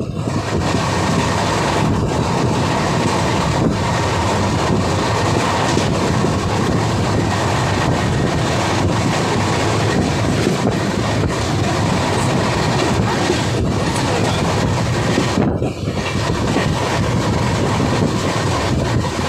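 Uday Express passenger train running along the track, heard from on board, with a steady rumble of wheels on rails and occasional clacks over rail joints.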